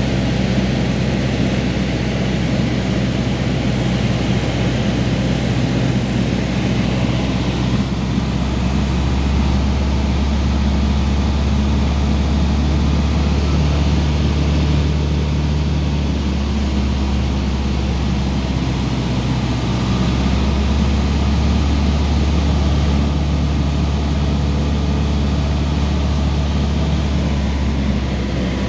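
Cessna 150's four-cylinder Continental O-200 engine and propeller droning steadily in flight, heard from inside the cabin. The deep hum grows and eases a few times.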